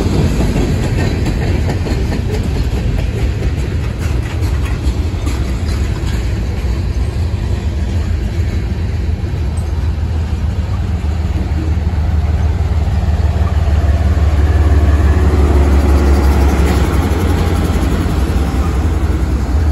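Freight train rolling past at close range, steel wheels rumbling and clattering on the rails as hopper and tank cars go by, the train picking its speed back up. Over the second half the mid-train distributed-power diesel locomotive comes alongside, and its deep engine hum swells and grows louder.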